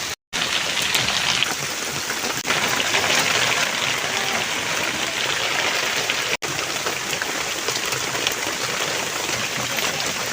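Hot oil sizzling and crackling steadily as food fries in a pan, breaking off for an instant twice.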